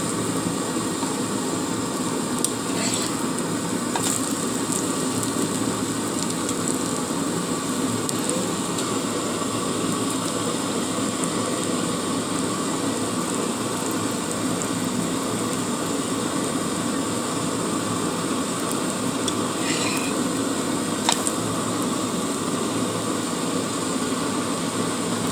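Egg batter frying in hot mustard oil in a pan: a steady sizzle, with a few faint clicks.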